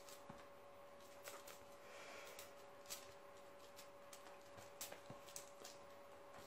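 Faint, scattered soft taps and ticks from a kitten batting at a feather wand toy on a cushioned chair, heard over a faint steady hum.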